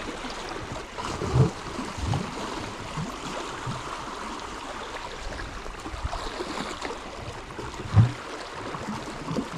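Sea water washing and lapping against shoreline rocks in a steady wash, with two dull low thumps.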